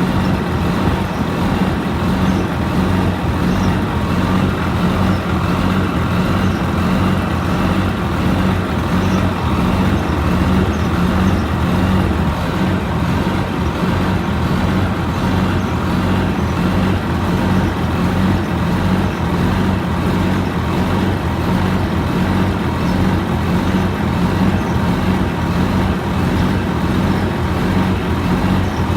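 Cummins QSM11 inline-six diesel engine running steadily at a constant speed, a deep even hum with no revving.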